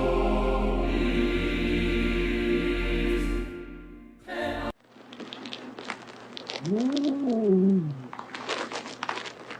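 Choir music that fades out about four seconds in. After a cut, a cat gives one long meow that rises and falls in pitch, among scattered clicks and rustling.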